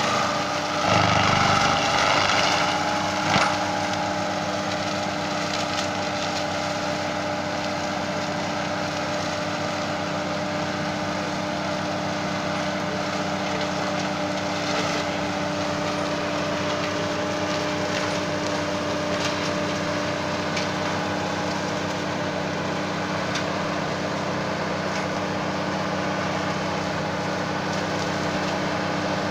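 Midiforst 225 forestry mulcher on a Valtra tractor running steadily with a constant hum, shredding grass and brush, the tractor engine under load. Louder crunching of woody material in the first few seconds, with a sharp crack about three seconds in.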